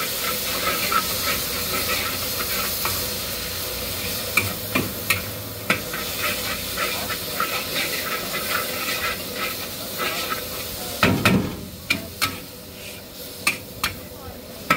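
Noodles sizzling in a wok as a metal spatula stirs and scrapes them, with frequent sharp clinks of the spatula on the wok. About eleven seconds in there is a dull thump, and after it the sizzle is quieter so that the clinks stand out.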